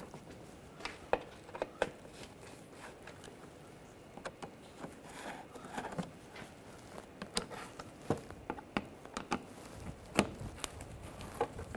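A Phillips screwdriver turning out the screws of a car's underbody panel: scattered soft clicks and short scrapes at irregular intervals.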